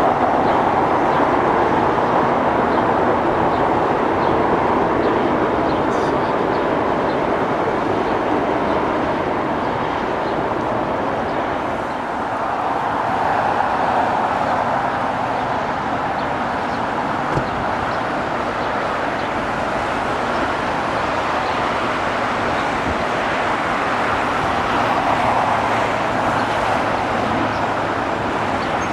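Steady, loud rushing roar of jet airliners and surrounding road traffic, with no distinct events; it dips briefly about twelve seconds in.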